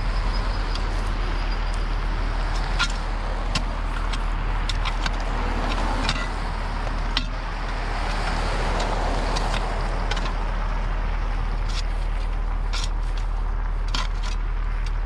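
Mini excavator's diesel engine running steadily while digging, with scattered clicks and knocks throughout.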